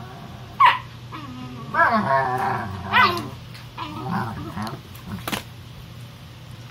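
Two dogs play-fighting: play growls and short yips, with a sharp yelp about half a second in, a longer wavering growl around two seconds in, and softer growls after.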